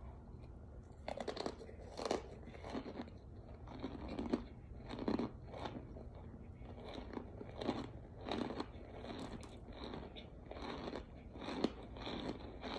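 A person chewing a mouthful of pressed cornstarch chunk close to the microphone: a run of dry crunches, about one to two a second.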